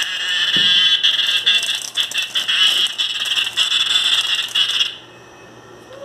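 A cicada caught by a cat giving a loud, harsh distress buzz, a fast pulsing rattle that cuts off abruptly about five seconds in.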